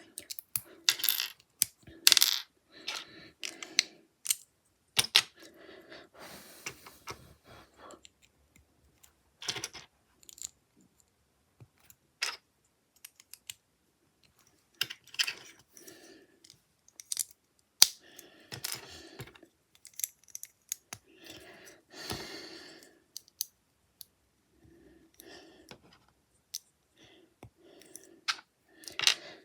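Small plastic Lego bricks clicking and clattering as they are handled and pressed together, in irregular sharp clicks with soft rustling between.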